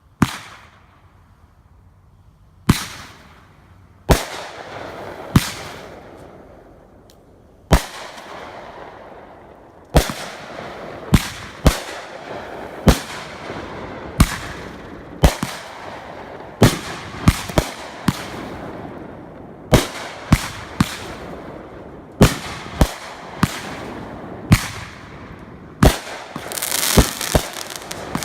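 Fireworks going off: a run of sharp bangs, a few seconds apart at first and then about one a second, with crackling between the reports. Near the end they build into a dense crackle.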